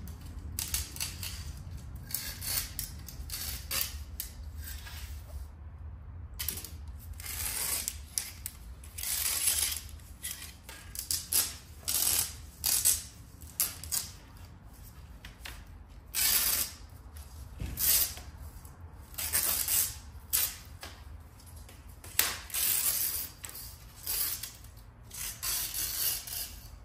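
Spline cord being pulled out of a screen frame's channel and the old screen mesh peeled away: a long run of short, irregular scratchy rasps and rustles. A steady low hum runs beneath them.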